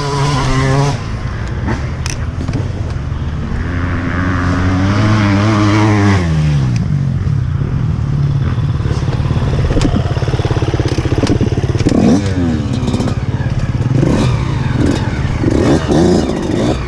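Off-road motorcycle engine revving up and dropping back several times, one long rev about four seconds in and shorter blips later, with clattering and scraping.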